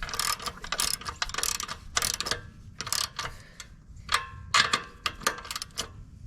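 Ratchet wrench clicking in short irregular runs with brief pauses as it tightens the chain adjuster lock nuts on a 125cc ATV.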